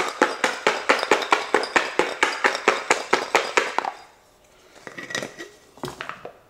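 Garlic cloves knocking against the inside of a jar that is being shaken hard to loosen and peel their skins, about six knocks a second. The shaking stops about four seconds in, followed by a few quieter handling knocks.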